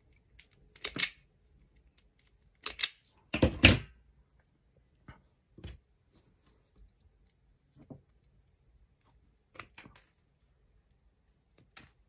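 Sharp clicks and snaps of an automatic wire stripper's jaws closing on electrical cable cores and pulling the insulation off. The loudest cluster comes a little over three seconds in, followed by fainter scattered clicks of wires and hand tools being handled.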